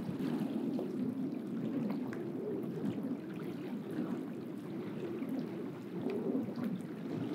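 Steady wind rumbling on the microphone with rain and water at the shore, with faint scattered ticks through it.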